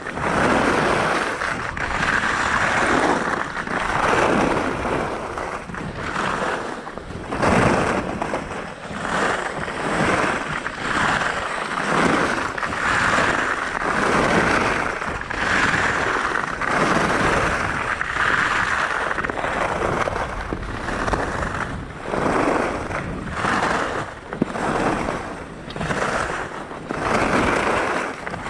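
Skis scraping and sliding over hard-packed, chopped-up piste snow: a continuous rushing scrape that swells and fades every second or two with each turn.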